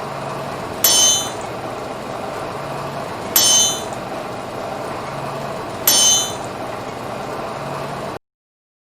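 Hammer striking an anvil three times, about two and a half seconds apart, each blow ringing bright and metallic, over a steady background hiss. The sound cuts off abruptly near the end.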